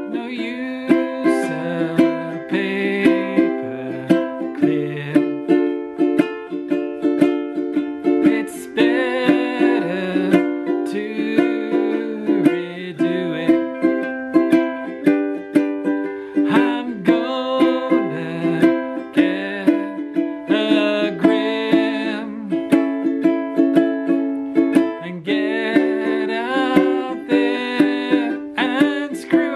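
Cordoba ukulele strummed in a steady rhythm, playing chords as an instrumental break in a song.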